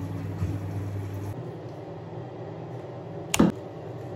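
Steady mechanical hum with a hiss over it, like a small motor or fan running in a small tiled room, with one sharp knock about three and a half seconds in.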